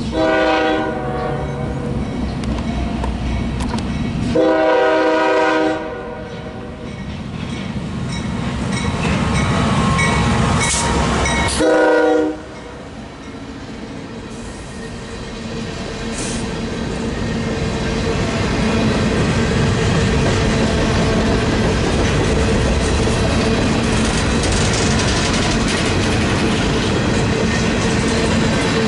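A diesel freight locomotive's horn sounds for the grade crossing: two long blasts, then a short one about twelve seconds in, as the train approaches. The locomotives then pass and a string of covered hopper cars rolls through, a steady rumble and wheel clatter that grows louder and holds.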